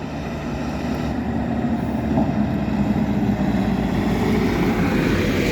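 Diesel engine of a Caterpillar 963D track loader running steadily, rising slightly in loudness.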